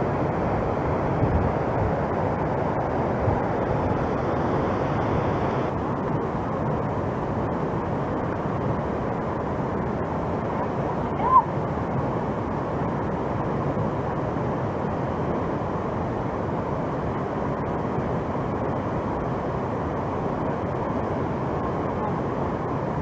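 Steady rush of river water tumbling through a dam spillway, an even roar with no breaks. A brief high chirp stands out about halfway through.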